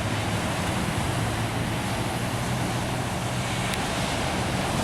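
Steady roar of Pacific Ocean surf breaking on a beach, with wind rumbling on the microphone.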